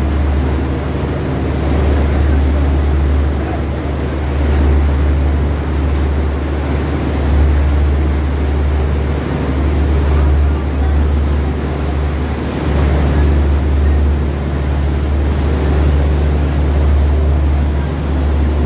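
Passenger boat's engine running with a steady low drone, with water rushing in its wake and wind on the microphone.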